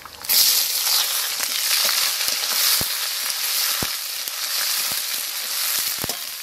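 Sliced onions dropped into hot mustard oil in a metal kadai, sizzling loudly as soon as they land, then frying with bay leaves, dried chillies and cumin while a spatula stirs them. A few sharp taps of the spatula against the pan.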